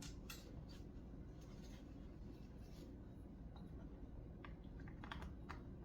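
Quiet room tone with scattered faint clicks and light handling noise of drum-kit cables being sorted and plugged into the pads.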